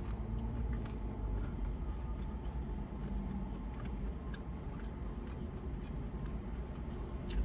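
Mouth sounds of chewing a spicy chicken nugget, faint and scattered, over a steady low vehicle rumble.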